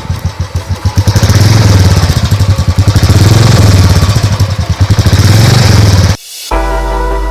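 Royal Enfield single-cylinder engine running through its stock silencer: idling with distinct, evenly spaced exhaust pulses, then revved up about a second in and held high with a couple of brief drops. It cuts off suddenly near the end, and background music follows.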